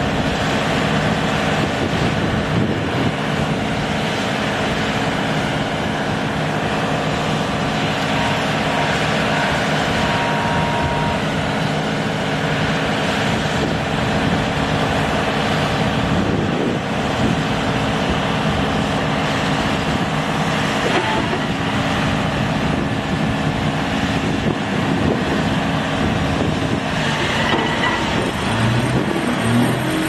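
Excavator-mounted vibratory hammer working a steel sheet pile, with the excavator's engine: a loud, steady mechanical drone with a constant hum.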